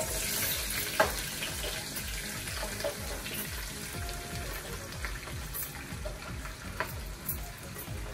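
Chopped cabbage sizzling as it lands in hot vegetable oil in a frying pan, with a few sharp clicks and rustles as the leaves slide out of the bowl.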